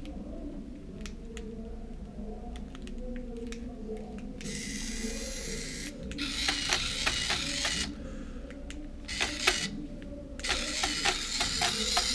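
Hexbug Spider robot toy walking under remote control: its small gear motor whirs steadily, with irregular clicking of its plastic legs and a few stretches of scraping.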